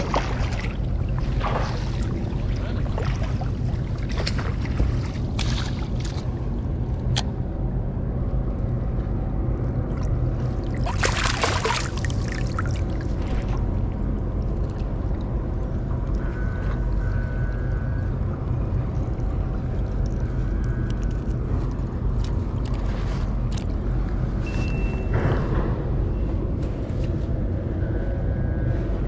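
Water splashing and sloshing around a wading angler as a hooked flounder thrashes at the surface and is scooped into a landing net, over a steady low rumble. One louder splash comes about eleven seconds in.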